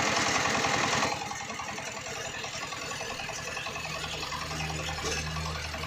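Greaves power tiller's single-cylinder diesel engine running with a fast, even beat, louder for about the first second and then steadier. A low steady hum joins about two-thirds of the way in.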